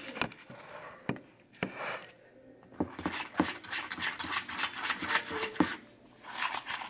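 Spoon scraping and knocking against a bowl as a thick food-coloured mixture is stirred, in irregular strokes that get busier in the second half.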